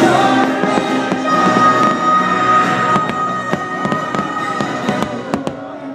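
Aerial fireworks bursting with sharp bangs and crackles over the show's music, which holds one long high note in the first half. The bangs come thicker and sharper in the second half as the music thins out.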